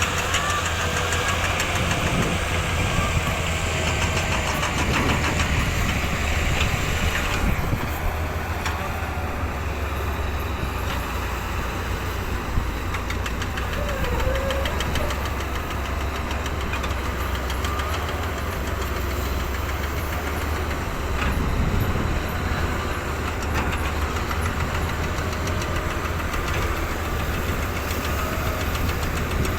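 Diesel engine of heavy earthmoving machinery running steadily with a deep, even hum.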